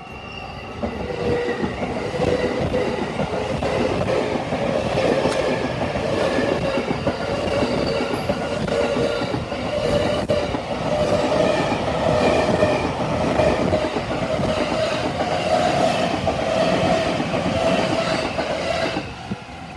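Yokosuka Line electric train passing over a level crossing: dense wheel and rail noise with clatter over the rail joints, starting about a second in and cutting off abruptly just before the end. The crossing's warning bell keeps ringing over the train noise.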